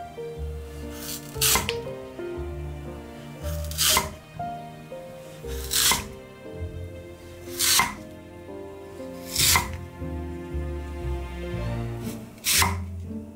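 Kitchen knife slicing through raw lotus root and tapping the wooden cutting board: about seven crisp cuts a couple of seconds apart.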